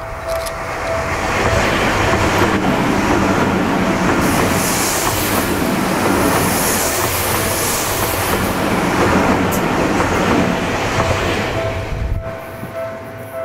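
Tokyu 5050 series electric commuter train, set 4110F, passing close by at speed: the running noise of wheels on rail builds over the first second or so, holds for about ten seconds and falls away as the last car clears. A warning bell rings about twice a second before the train's noise swells, is drowned out while it passes, and is heard again near the end.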